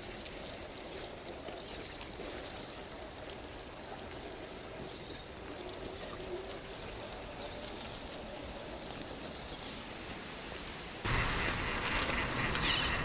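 Running water, a steady rush, which gets suddenly louder and fuller about eleven seconds in.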